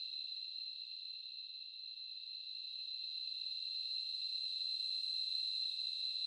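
A steady, high-pitched drone of insects such as crickets or cicadas calling without a break.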